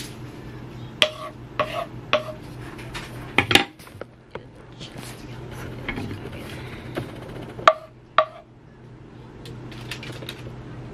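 A metal utensil clinking and scraping against a pan while butter sauce is poured out over salmon in a foil packet. There are three sharp, ringing clinks about a second in, a cluster near the middle and two more near the end.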